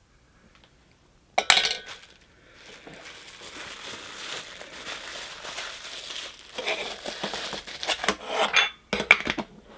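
A Funko Soda can and its crinkly plastic wrapping being handled. A sharp metallic clack comes about a second and a half in, then a long run of crinkling, then a cluster of clinks near the end.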